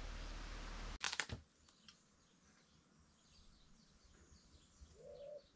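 Quiet outdoor ambience with small birds chirping and a dove cooing near the end. A steady hiss in the first second cuts off abruptly with a brief knock.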